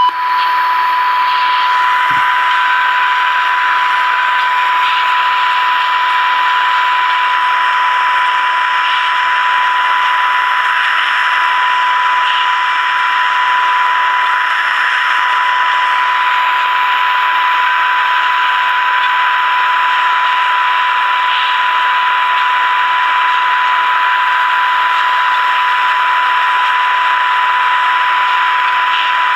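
A transistor radio's speaker plays a steady single test tone over loud hiss. The tone is the amplitude-modulated 455 kHz signal from a signal generator, demodulated by the Zenith Royal 51's circuitry while its IF transformers are being aligned.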